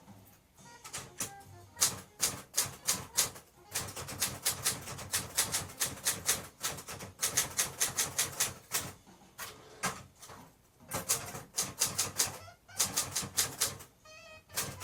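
Olivetti Linea 88 manual typewriter being typed on: quick runs of sharp keystrokes in bursts, with a brief pause about two-thirds of the way through.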